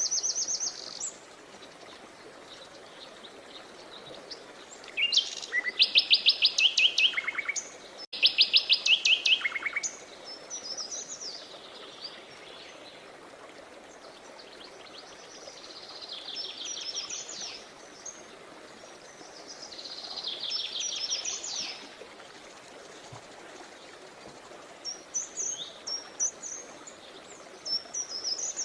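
Songbirds singing, with loud fast trills of rapidly repeated notes about five and eight seconds in, shorter trills later, and quick chirps near the end, over a steady rush of flowing water.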